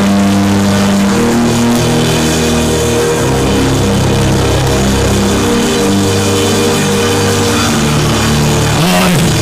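Background music, loud and steady, with held chords and a bass line that moves to a new note every second or two.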